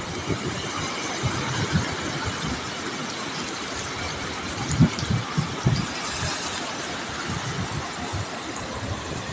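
Surf washing in over the beach, a steady rush of breaking waves, with wind buffeting the microphone in irregular low thumps, the strongest about five seconds in.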